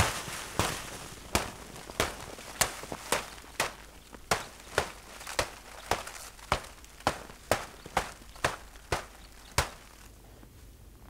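Footsteps in snow, about two steps a second, each a sharp crunch; they stop near the end.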